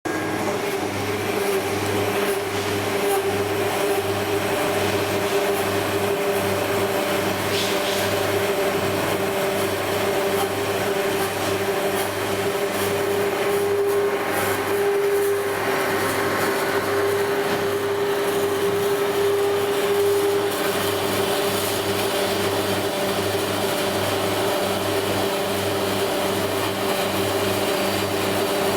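Asada Beaver 4F ECO band saw running steadily, a constant hum with a low, evenly pulsing throb under a hiss.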